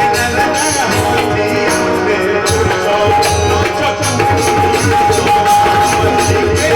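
Live Bhojpuri folk-song accompaniment playing without singing: a held melodic note sounds over hand-drum beats and a regular jingling percussion beat.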